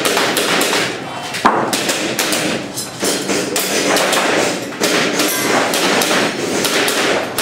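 Gas airsoft pistol fired in a quick string of sharp shots, about three a second, with the sharpest crack about one and a half seconds in.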